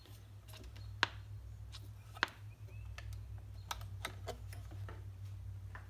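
Scattered light clicks and knocks from handling an Echo SRM-225 string trimmer as it is readied for a cold start, with two sharper clicks about one and two seconds in, over a steady low hum. The engine is not yet running.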